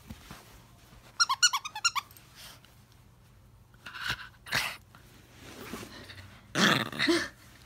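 Small black dog vocalizing close up: a quick run of about eight high-pitched yips about a second in, then a few short rough growly noises, the loudest near the end.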